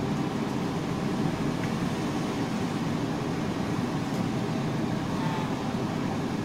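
Steady low rushing hum at the stove, with a wooden spatula stirring through a large pan of simmering minced pork and making a few faint ticks.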